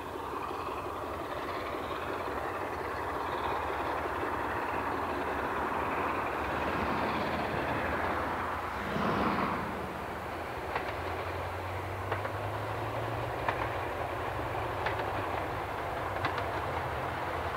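Class 45 'Peak' diesel locomotive working a passenger train as it approaches, its engine running steadily. In the second half the wheels start clicking over rail joints, the clicks coming closer together near the end.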